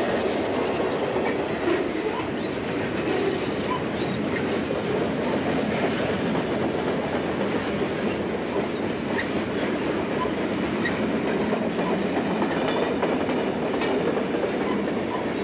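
Freight cars (boxcars, covered hoppers and tank cars) rolling steadily past close by: a continuous rolling noise of steel wheels on the rails, with scattered short clicks and squeaks from the wheels and trucks.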